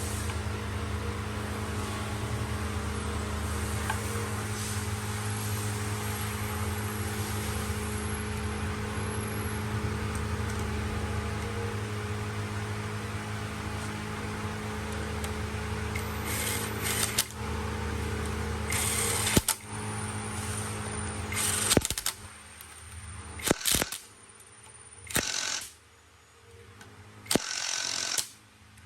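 Workshop machinery hum with a steady low drone. In the second half come several short bursts of hiss and a few sharp metal clicks, with abrupt drops in level between them.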